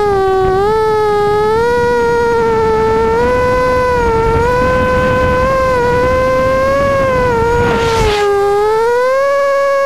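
Racing quadcopter's brushless motors whining in flight, the pitch wavering up and down with the throttle and rising near the end. A brief rush of noise about 8 seconds in.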